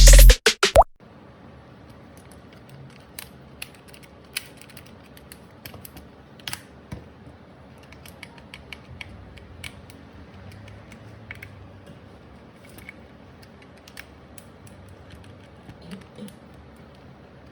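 Scattered small clicks and light taps from hand work on a Bosch cordless drill's plastic housing and parts during a repair.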